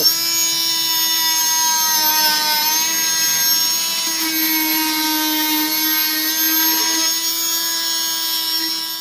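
Small handheld buzz saw running with a steady high whine as it cuts through a plaster-and-burlap field jacket. It starts abruptly, and its pitch dips briefly about two and a half seconds in as the blade bites.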